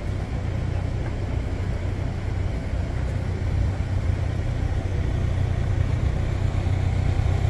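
Steady low rumble of road traffic on a city street, getting slightly louder toward the end.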